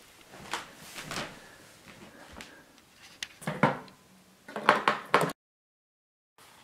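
AA batteries and a plastic battery compartment being handled on a quadcopter's radio transmitter: faint rustles, then two clusters of small clicks and knocks as the cells are pushed into their spring contacts. The sound cuts out completely for about a second near the end.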